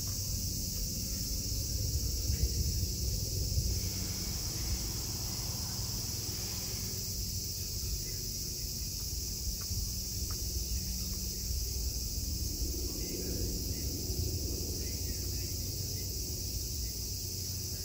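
Steady, high-pitched chorus of insects, with a low rumble underneath.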